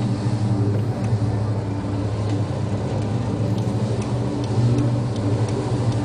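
Steady low drone of a ship's engines and machinery in heavy seas, with a broad wash of wind and sea noise and a few faint scattered ticks.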